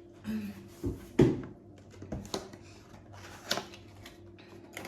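Handling noise as a newly unboxed hair straightener and its packaging are handled: a handful of short clicks and knocks with a little rustling, the loudest knock about a second in.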